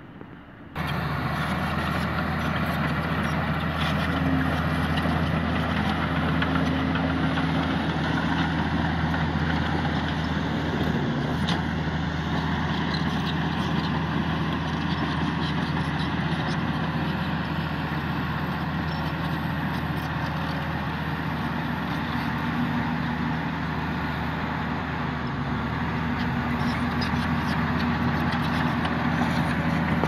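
Diesel engines of heavy earthmoving machinery running steadily close by, a Hamm 311D padfoot roller and a Komatsu D85E-SS bulldozer. The sound begins abruptly about a second in.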